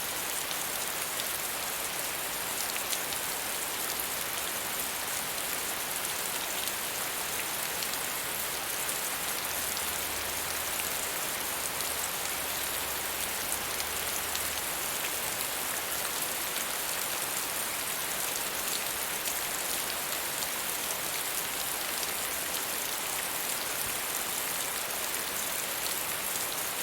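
Steady medium rainfall pattering on a surface, a dense even hiss of drops with fine individual ticks through it.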